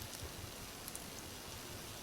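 Wood fire burning in a fireplace: a steady soft hiss with a few faint crackles.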